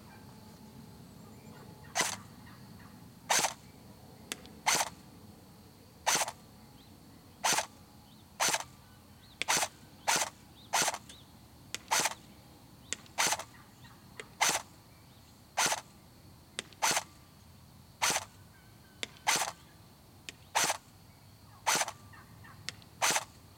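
Colt M4A1 airsoft electric gun (AEG) firing single shots on semi-automatic: about twenty short, sharp shots, roughly one a second.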